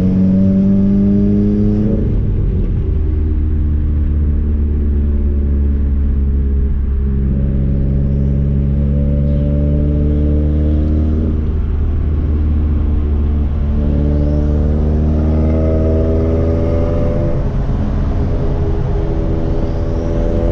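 Subaru WRX's turbocharged flat-four with a straight-piped exhaust, heard from inside the cabin while driving: a loud, steady low exhaust note whose pitch climbs slowly and drops back at each upshift, several times.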